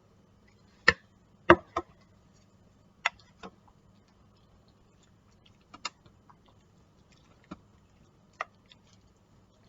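Scattered sharp knocks and clicks of kitchen utensils being handled, about nine in all, loudest around a second and a half in, over a faint low hum.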